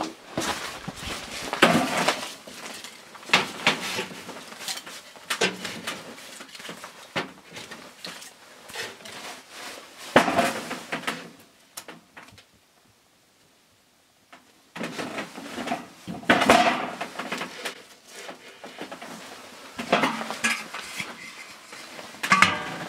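Split kindling being loaded into a metal wood stove: irregular wooden knocks and clatter against the stove's metal, with a brief near-silent pause a little past halfway. Near the end, metal clanks as the stove's round top lid is handled.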